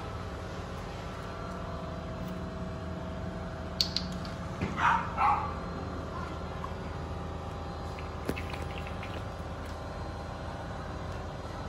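Two short, loud animal calls in quick succession about five seconds in, over a steady low background hum, with a couple of sharp clicks around them.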